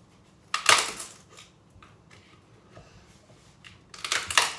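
Screwdriver prying and scraping at the glued layers of a bamboo cutting board. There are two short, harsh bursts, one about half a second in and one near the end, with faint scrapes between them.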